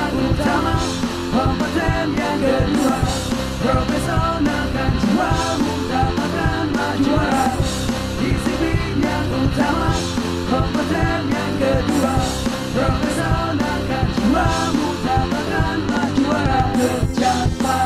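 Upbeat rock-style song with a singer performing Indonesian lyrics over a full band with a steady beat.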